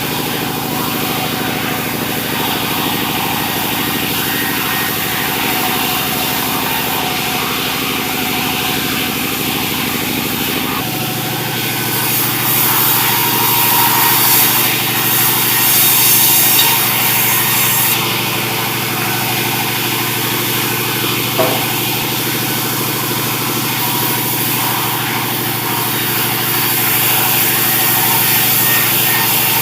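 Sawmill running steadily under engine power, with the saw cutting through sengon wood; the high, hissing cutting noise swells twice, for about six seconds each time.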